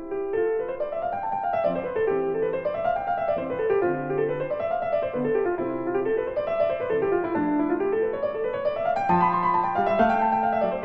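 Background piano music: runs of notes climbing and falling in waves over low sustained bass notes.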